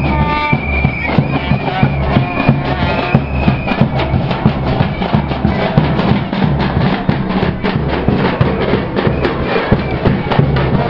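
Loud carnival music with a fast, steady drum beat and heavy bass, blared from a sound truck's loudspeakers, with a held high note in the first few seconds.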